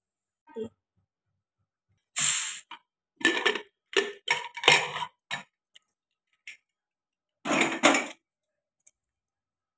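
Metal clinks, knocks and scrapes of a Hawkins pressure cooker lid being worked loose and lifted off: a string of short handling sounds, a cluster in the middle and another near the end.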